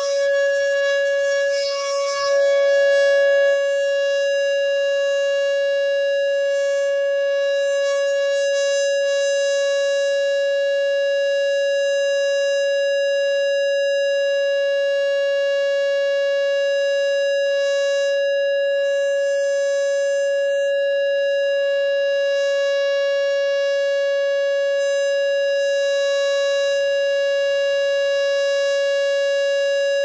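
Whelen Vortex R4 electronic outdoor warning siren sounding its steady alert tone: one loud, unwavering pitch with no rise or fall, the tornado-warning signal given in a drill. About two seconds in, another tone briefly overlays it.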